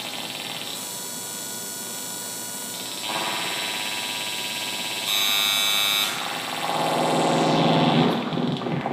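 Handmade electronic instruments playing live: layered buzzing tones and noise that shift abruptly in blocks, with a piercing high tone about five seconds in and a lower, denser drone taking over near the end.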